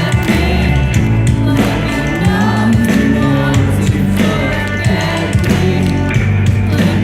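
Live pop-punk band playing loudly: a singing voice over guitars and drums.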